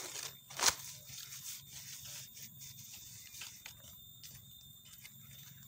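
Footsteps and movement in dry leaf litter: scattered rustles and crackles, with one sharp crack under a second in.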